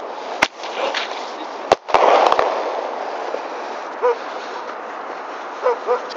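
Small aerial fireworks bursting overhead in daylight: one sharp bang about half a second in, then a quick run of three or four bangs around two seconds in, each trailing off in a fading hiss.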